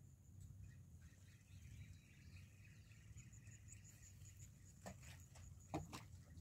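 Near silence: a faint steady high tone, with a few soft clicks and knocks about five to six seconds in.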